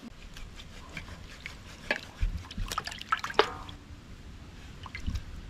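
Wet, irregular clicks and drips from raw chicken being handled and cleaned.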